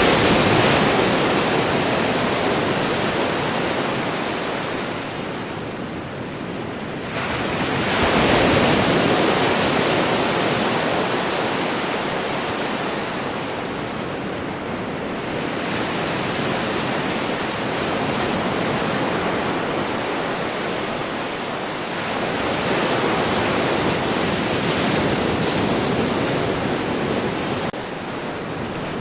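Sea waves breaking and washing in, rising in a fresh surge of hiss every seven or eight seconds, then easing.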